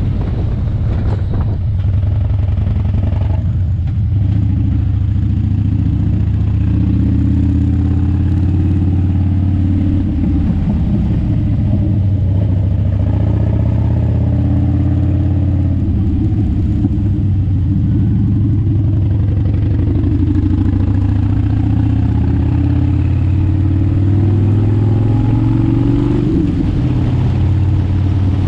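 Vehicle engine running under way on a winding road, its pitch rising and falling with the throttle; late on the pitch climbs steadily, then drops.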